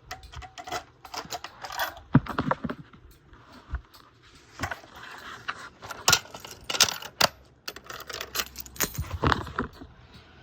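Metal fire alarm pull stations being handled and worked: an irregular run of sharp clicks and clunks with metallic jangling, loudest about two seconds in and again about six seconds in.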